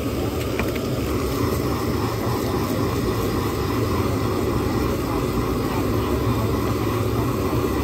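Steady noise of a gas stove burner at full flame under a frying pan, with an omelette sizzling in butter.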